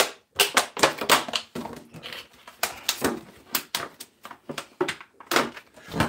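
Gloves being pulled on and worked onto the hands: an uneven run of sharp rustles, crackles and snaps, several a second.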